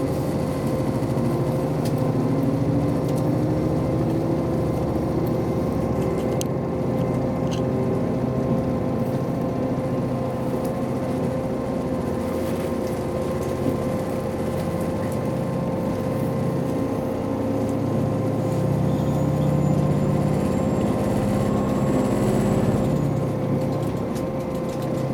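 Diesel railcar running sound from a KiHa 261 series car's N-DMF13HZH diesel engine and running gear, heard on board as the train pulls away and gathers speed. Several rising tones climb in the first few seconds over a steady hum and a steady higher tone, and the engine note swells again near the end.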